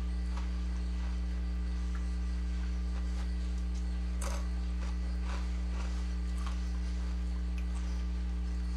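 A steady low electrical hum, with faint crunches and rustles of seasoned tortilla chips being picked up and eaten; the crispest crunch comes about four seconds in.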